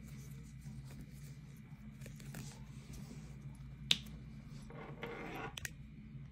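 Hands handling a crocheted cord purse on a wooden tabletop: soft rustling and rubbing of the yarn, with one sharp click about four seconds in and a few lighter clicks near the end, over a low steady hum.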